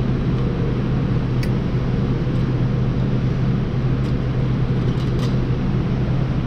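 Steady low mechanical hum from a running machine, unchanged throughout, with a few faint light clicks of small parts being worked into place by hand.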